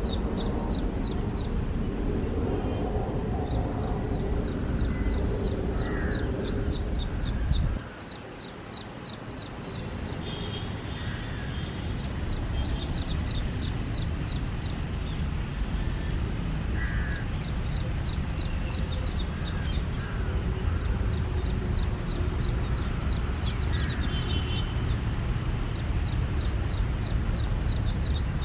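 Small birds chirping in rapid repeated trills and crows cawing a few times over a steady low rumble. The rumble drops suddenly about eight seconds in and builds back over the next few seconds.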